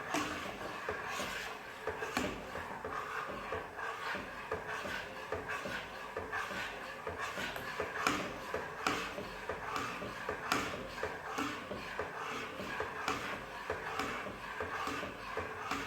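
A spoon stirring and scraping a pot of thick rice pudding on the stove, with irregular small knocks and rubbing strokes about once or twice a second.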